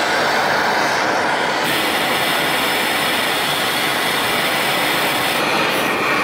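Hose-fed hand torch burning with a steady hiss as its flame heats the pitman arm, so that the arm expands and slides off the steering gearbox splines.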